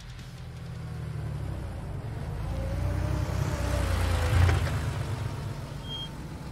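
Box delivery truck's engine running as it drives along the street. The low rumble builds to its loudest about four and a half seconds in, then eases off.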